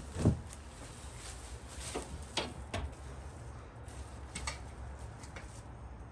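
Scattered knocks and clicks from handling parts of a dining set being unpacked and assembled, the loudest a thump just after the start, over a steady low hum.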